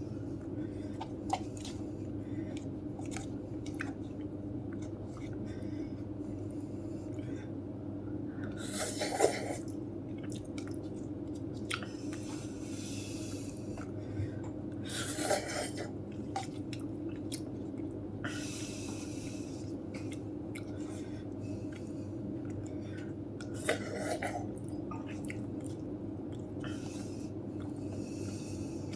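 A person eating instant cup noodles close to the microphone: quiet chewing and small mouth clicks over a steady low hum, with three louder short slurping noises spread through.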